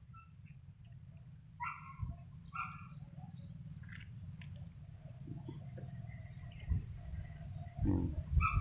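A short high chirp repeated steadily, just under twice a second. It is joined by a couple of louder, lower calls about two seconds in, over a low rumble.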